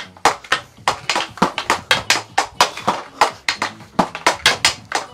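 Hockey stick blade and puck clacking on a dryland tile during a fast stickhandling and passing drill: sharp taps about four a second.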